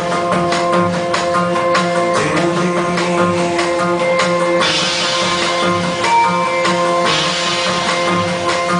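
Industrial rock band playing live: a steady drum beat under held electric guitar and synthesizer tones. A bright hissing wash swells over the music twice, about halfway through and again near the end.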